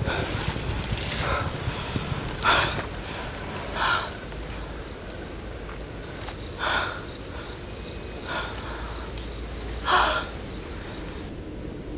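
A woman's sharp, heavy breaths or gasps, about five of them a second or two apart, over a low steady rumble.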